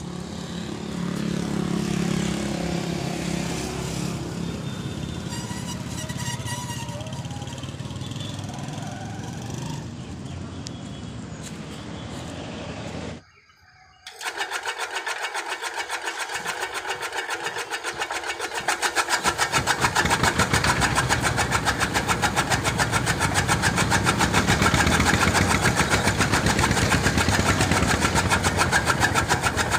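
Straw-cutting chaff cutter machine running, with a fast, even clatter. It breaks off briefly about thirteen seconds in, then runs on and grows louder from about nineteen seconds.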